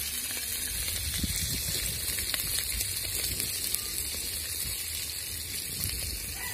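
Dried fish (tuyo) frying in an aluminium pot over an open wood fire: a steady sizzle with small crackles from the burning wood.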